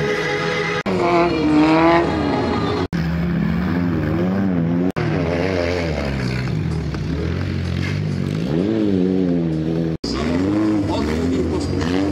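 Engines of old wreck-race cars revving up and down as they drive and slide on a muddy dirt track, the pitch rising and falling again and again. The sound breaks off for an instant four times where short clips are joined.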